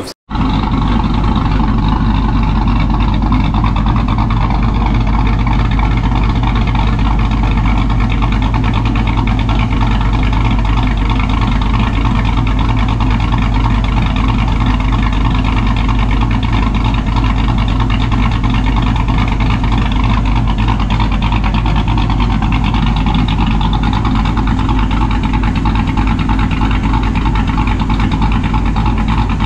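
Dodge Dakota R/T's V8 engine idling steadily while it warms up toward fan temperature, with a low, even exhaust drone.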